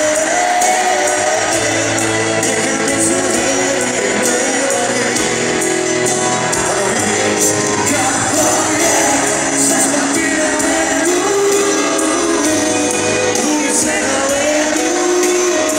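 Live pop-rock concert music in a large arena: a male singer's voice over the band, with crowd noise and the hall's echo, heard from high in the stands.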